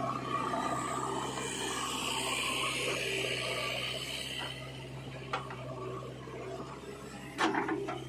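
Diesel engine of a backhoe loader running steadily while its bucket tips a load of earth into a tractor trolley, the soil pouring out in a hissing rush for a couple of seconds. Later come a sharp metallic knock and then a louder cluster of clanks as the bucket goes back to digging.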